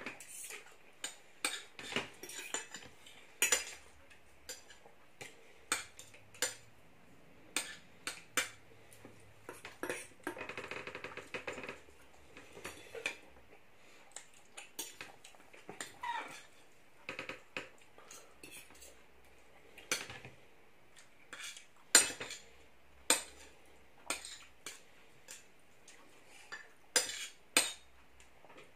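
Knives and forks clinking and scraping on ceramic dinner plates as two people cut and eat their food, in irregular sharp clicks.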